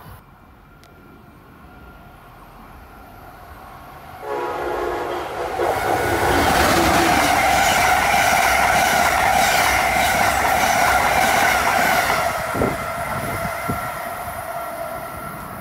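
Amtrak train horn sounding a held chord of several tones, starting suddenly about four seconds in and lasting several seconds, over the rush and rattle of the train passing close at speed. The sound fades over the last few seconds.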